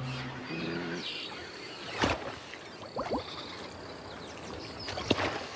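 Crocodiles moving through shallow water: water sloshing and splashing, with sharp splashes about two seconds in, around three seconds in, and again near the end.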